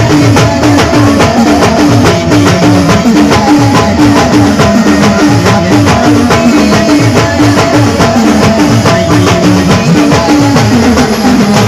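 Band playing timli dance music: drums keep a fast, even beat under a short melodic figure that repeats over and over.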